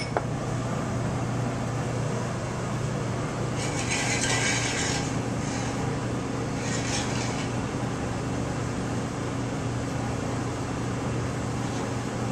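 Steady hum and rushing noise of a commercial kitchen around a lit gas range, with a brief hiss about four seconds in and a shorter one near seven seconds.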